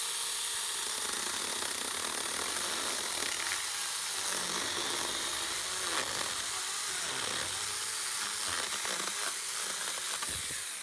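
Battery-powered mini chainsaw running steadily while cutting through a palm tree trunk about 8 cm thick. It is a high-pitched buzz that stays even throughout and starts to die away near the end.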